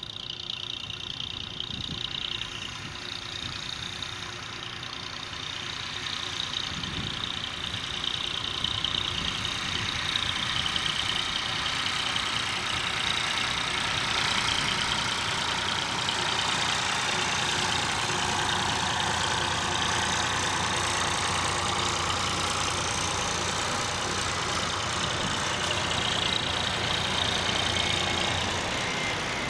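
Airbus A320-214's CFM56 turbofan engines on final approach at low power: a steady jet rumble with a high fan whine, growing louder over the first several seconds as the airliner nears, then holding.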